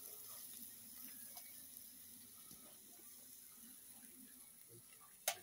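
Faint sizzling of sausages and chicken on a grill grate over a fire, with small ticks and one sharp click near the end.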